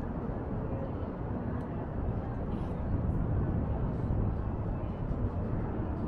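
Outdoor city ambience: a steady low rumble of traffic with a murmur of distant voices.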